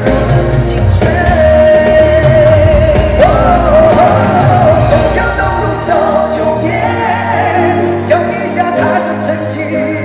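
A man singing a pop song into a handheld microphone over backing music, his melody wavering and held on long notes; the deepest bass drops away about six seconds in.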